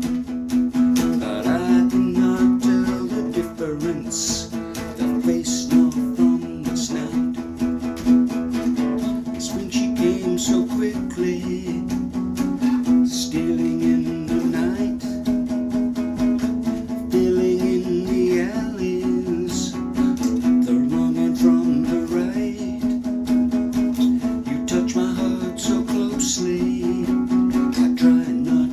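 Acoustic guitar music, plucked and strummed, over one steady held low note.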